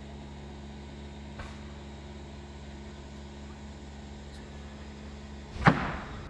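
A steady low mechanical hum with a few fixed tones, like a motor or engine running, and one sharp knock near the end.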